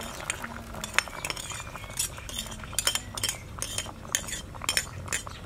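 Metal spoon scraping and clinking against a ceramic plate as tapioca pearls are pushed off it into a pot. Scattered sharp clinks at first, coming quickly one after another from about two seconds in.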